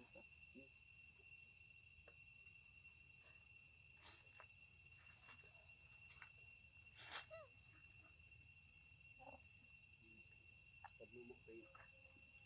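Faint, steady high-pitched drone of insects chirring. A few faint clicks, and one short, slightly louder sound falling in pitch a little past the middle.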